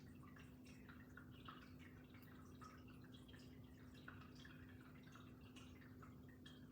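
Near silence: a 1998 Hunter Medalist ceiling fan running quietly, a faint steady hum with light, irregular ticks.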